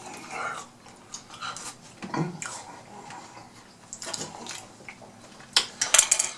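Close-miked chewing and biting of fried fish: wet mouth smacks and small crunches, with a louder run of sharp clicks near the end.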